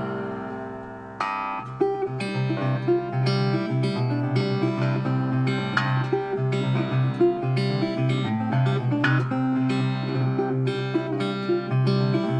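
Acoustic guitar music: plucked and strummed notes in a steady rhythm, with a fresh run of notes about a second in.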